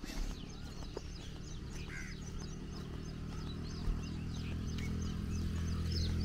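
Small birds chirping in the roadside trees, a quick run of short high notes. Under them a steady low hum grows louder toward the end.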